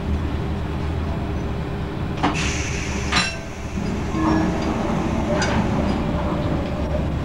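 Electric suburban train running along the track, heard from inside the car: a steady low rumble and hum, with three sharp metallic clinks.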